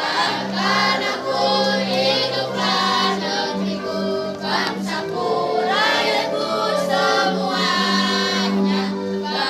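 Children's choir of sixth-graders singing, one sung phrase after another.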